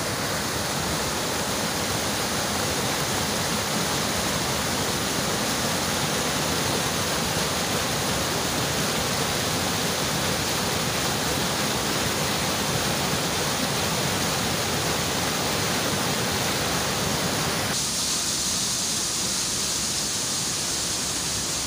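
Stream water rushing and splashing down a rocky cascade in a steady, loud rush. Near the end the sound changes suddenly to a thinner, hissier rush of water.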